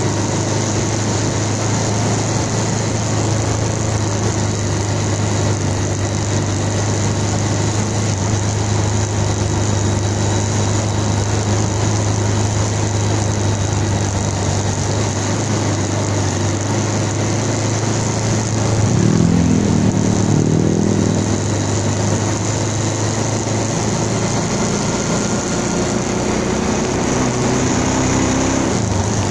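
Bajaj Pulsar 220 single-cylinder motorcycle engine running under way at low speed, with a steady hum and wind rush. The engine note climbs louder about twenty seconds in and rises again near the end as the bike speeds up.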